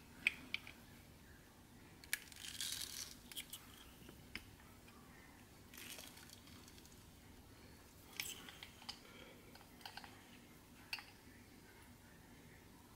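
Quiet kitchen handling noises: a few sharp clicks and taps, with short rustling, crinkling bursts about two seconds in and again later on.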